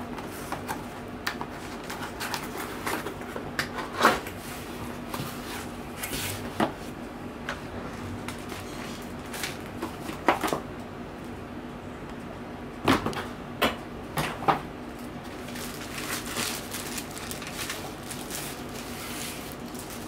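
A cardboard product box is handled and opened by hand: cardboard flaps are pulled and rubbed, with a series of sharp knocks and taps. Later the cooling pad is slid out and its plastic wrap rustles.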